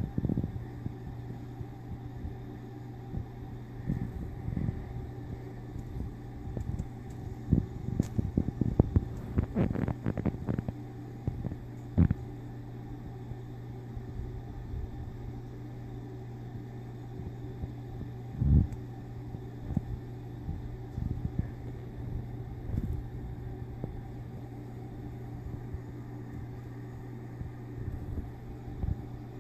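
Two cats play-fighting on carpet: scattered soft rustles and bumps, busiest about a third of the way in, over a steady low hum.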